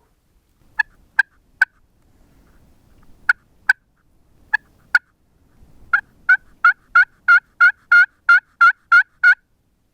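Turkey yelps, loud and close. First come a group of three, then two pairs, then a steady run of about eleven yelps at roughly three a second.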